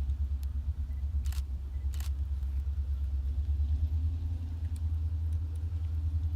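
Low, steady rumble with a faint hum above it and a couple of faint clicks about a second and two seconds in.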